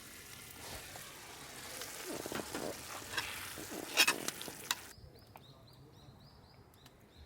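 Food sizzling in a pan with stirring and scraping, and a loud clink about four seconds in. The sizzling cuts off suddenly about five seconds in, leaving a bird calling in a quick run of short high notes.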